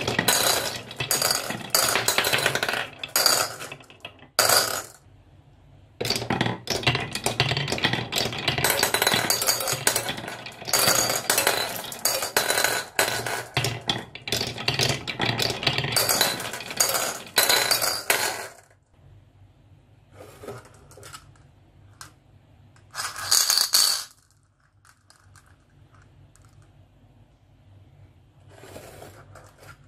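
Glass marbles rolling and rattling down wavy-grooved wooden tracks and clinking into bowls: a dense clatter for about eighteen seconds, then scattered clicks and two short rattles.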